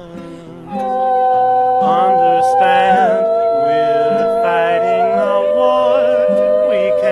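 Music that comes in under a second in: long held, wordless notes that step to a new pitch every second or two over a lower accompaniment.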